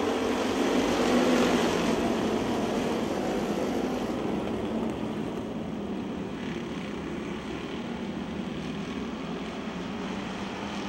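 A full field of stock cars racing at full throttle on a dirt oval just after the green flag. The massed engines are loudest about one to two seconds in as the pack goes by, then settle to a steady, slightly quieter sound.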